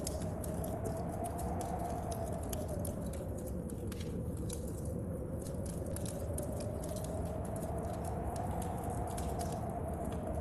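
Mixed storm-and-fireplace ambience. A wood fire crackles with dense, sharp pops over a steady low rumble, and a wind howl slowly rises and falls.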